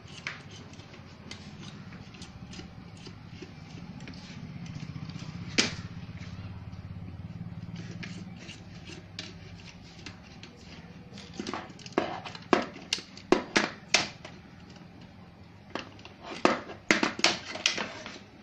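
Sharp clicks and clacks of tools and parts being handled during a set-top box repair: a single loud click about five seconds in, then rapid clusters of clicks in the second half. Under them, a low hum that swells and fades in the first half.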